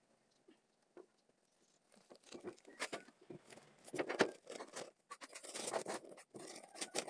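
Wall tiling work: irregular scrapes and knocks of a hand trowel working tile mortar, starting about two seconds in and loudest around four seconds in.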